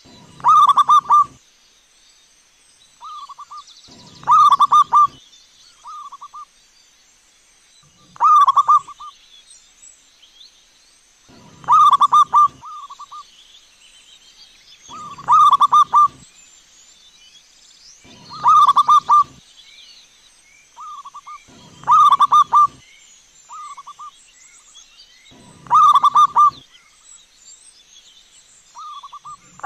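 Zebra dove (perkutut) calling: a loud, rapid rolling coo phrase about every three and a half seconds, with softer short coo notes in between. A faint steady high-pitched tone runs underneath.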